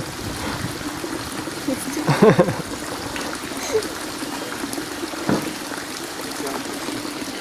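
Steady trickle of running water into a turtle pond. A short burst of voice comes about two seconds in, and a single knock just after five seconds.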